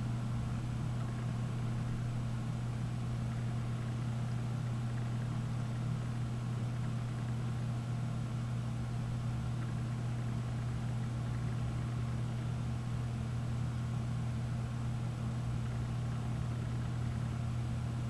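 A steady low hum that does not change, like a machine or engine running constantly, with a faint high whine above it; no bird calls can be made out.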